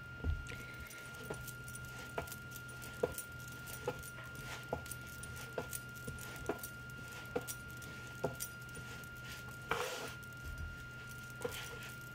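Roti dough being kneaded by hand on a floured wooden board: a short knock with each push, about one a second, and one louder slap and rustle about ten seconds in.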